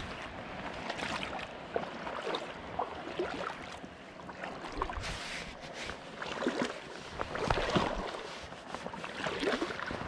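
Water sloshing and splashing irregularly around the legs of an angler wading out into a slow river.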